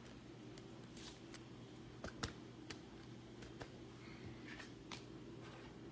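Scattered light clicks and taps, with one sharper click about two seconds in, over a steady low hum.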